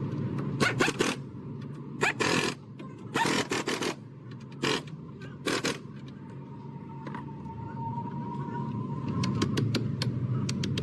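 Work on a car's engine mount: several short scraping, rattling bursts over a steady low hum, then rapid clicking near the end.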